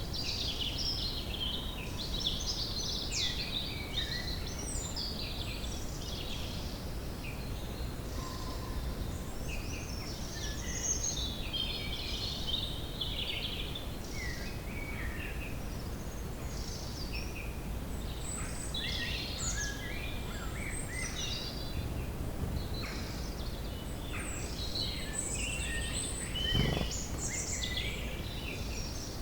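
Woodland ambience: several songbirds chirping and trilling over a steady low background rumble. A brief low rumble stands out about three-quarters of the way through.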